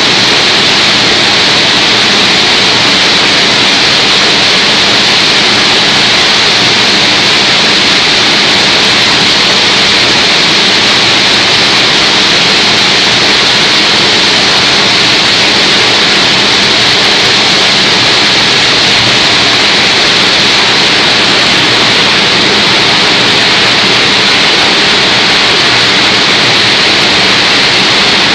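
Y81-160Z hydraulic scrap-metal baler running: a loud, steady, even hiss that does not change.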